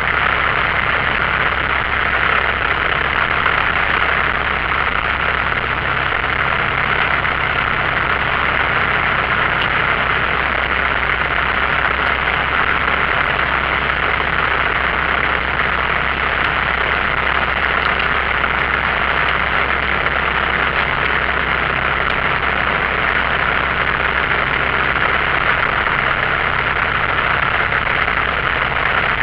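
Single-engine light aircraft's piston engine and propeller at low taxi power, a steady drone heard from inside the cockpit.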